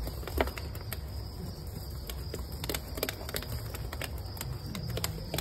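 Crickets chirring steadily at a high pitch, with scattered light clicks and knocks over a low rumble.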